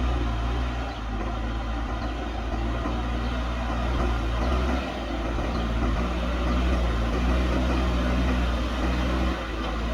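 JCB backhoe loader's diesel engine running steadily while working, its note shifting about five seconds in and again near the end as the load changes.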